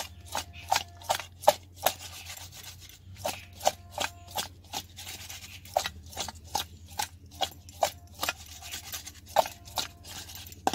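Small whole kadma fish being mixed by hand with salt and turmeric in a stainless-steel bowl: a quick run of sharp clinks, about two or three a second, some leaving the bowl ringing briefly, over a low steady hum.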